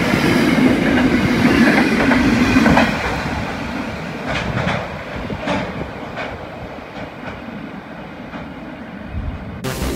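Freight train of empty flat wagons rolling past, wheels clattering over the rail joints. About three seconds in the noise drops away, leaving separate fading clicks as the wagons move off.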